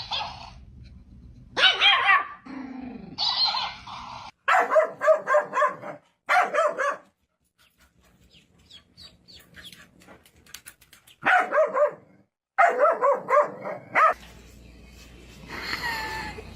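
Dog barking in runs of quick barks, with a quieter stretch of a few seconds in the middle.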